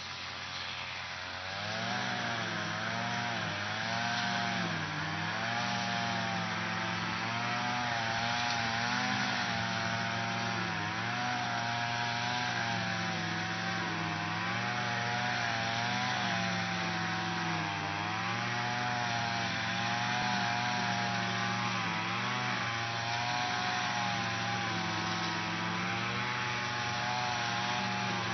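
Lawn mower engine running, its pitch wavering up and down every second or two; it grows louder about two seconds in.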